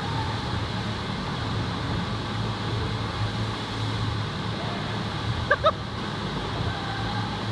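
Steady rush and rumble of a FlowRider sheet-wave machine: a thin sheet of water pumped at speed up the padded surface under a rider. Two brief high-pitched chirps cut through a little past five seconds in.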